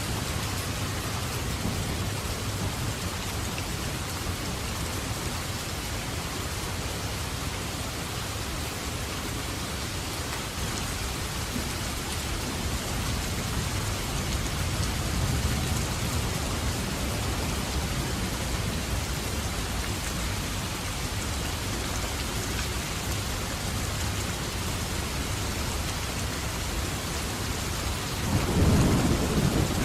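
Steady heavy rain falling, with thunder rumbling low underneath and a louder roll of thunder near the end.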